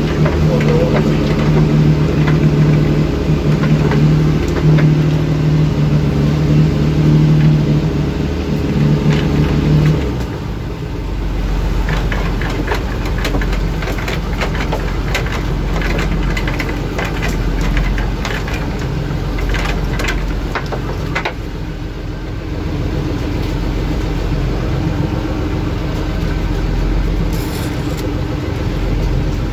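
Boat engine running at a steady pitch, then dropping away about ten seconds in to a low, rumbling idle, with wind and rushing water and scattered knocks and clatter on the boat.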